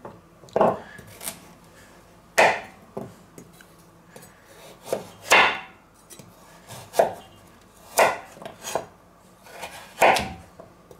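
Chef's knife cutting carrots into strips on a wooden cutting board: each stroke gives a crunch through the carrot and a knock on the board. The cuts come one at a time, unevenly spaced every one to two seconds.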